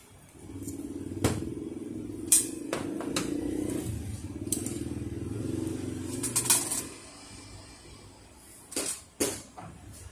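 Sharp clicks and taps of metal and plastic parts as a Ricoh copier's fuser oil-web assembly is handled and taken apart. Under them is the steady hum of a vehicle engine, which comes in about half a second in and fades away after several seconds.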